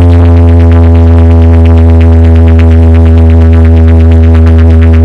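Loud electronic DJ-remix music: one deep synth bass drone held on a single pitch, with a fast, regular pulsing buzz over it.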